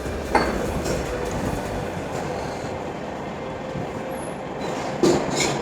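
Steady background din of a restaurant dining room, with a sharp clink about a third of a second in and another knock near the end.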